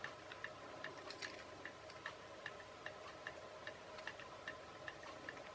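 Faint, even ticking at about two and a half ticks a second, like a clock, over a faint steady hum.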